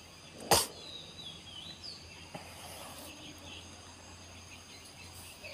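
Steady high-pitched insect chorus with a few short bird chirps. A single sharp knock about half a second in is the loudest sound.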